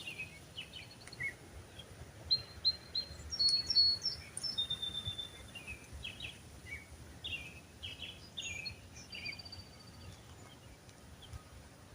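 Wild birds chirping and calling, a string of short high notes and brief trills that come thickest in the first half and thin out toward the end, over a faint steady outdoor background.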